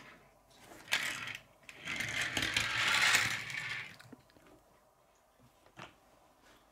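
Handling noise on a wooden table: a sharp clack about a second in, then a couple of seconds of scratchy scraping and rustling, and a faint tap near the end.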